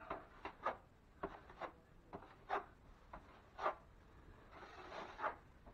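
A damp sponge wiping setting quick-set joint compound (hot mud) along a metal corner bead, feathering the edges. It comes as about a dozen short rubbing strokes at irregular intervals.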